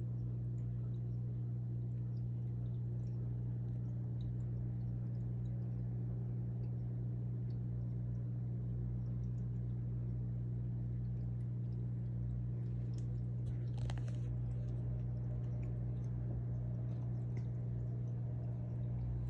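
Steady low electrical hum of running aquarium equipment such as a pump, with scattered faint clicks and a short cluster of clicks a little past the middle.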